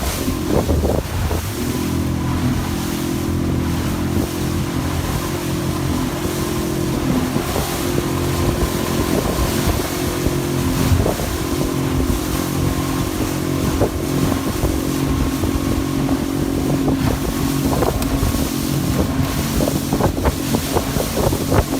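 Outboard motor of a small Yuzhanka-2 motorboat running steadily at speed under way. Wind buffets the microphone throughout.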